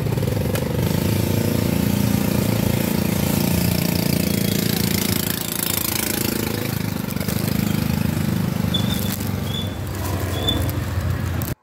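Small engine running steadily close by, with plastic bags rustling over it; the sound cuts off suddenly near the end.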